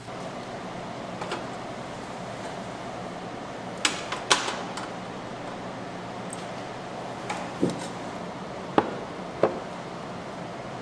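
Scattered sharp knocks and clicks of kitchen utensils, about half a dozen, the loudest about four seconds in, over a steady hum.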